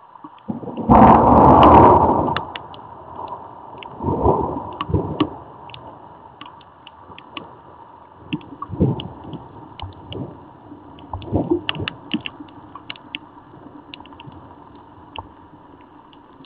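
Thunderstorm heard through an outdoor security camera's microphone. Raindrops tick on the camera housing in scattered clicks. A loud burst of thunder starts suddenly about a second in and lasts about a second and a half, followed by several softer rumbles.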